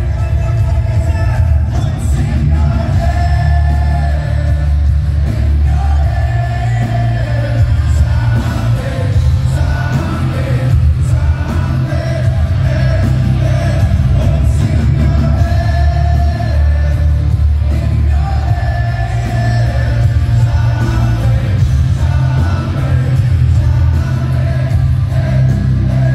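Live heavy rock band playing with a male lead singer, heard from inside the crowd through a phone's microphone, the bass heavy and dense under the sung melody.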